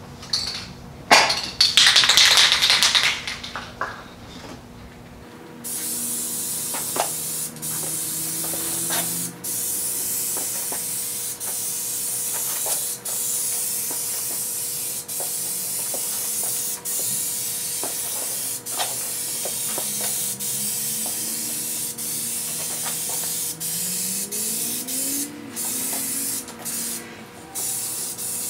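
Aerosol spray can of base-coat paint being shaken hard for a few seconds, then spraying with a steady hiss. The hiss breaks off briefly again and again as the nozzle is let go between passes.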